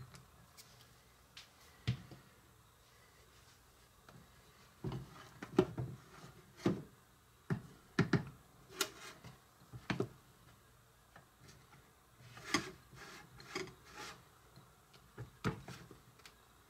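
A spatula scooping whipped filling out of one glass bowl and spreading it into another, scraping and tapping on the glass, with the glass bowls knocking on the counter as they are steadied. It is a string of short clinks and knocks that gets busy from about five seconds in, after a single knock near the start.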